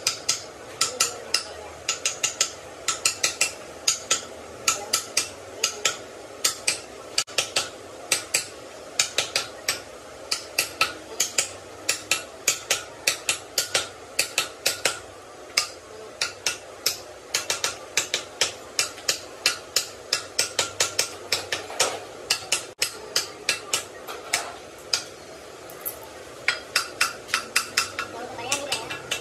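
Hammer striking metal in quick runs of several blows at about three to four a second, with short pauses between the runs.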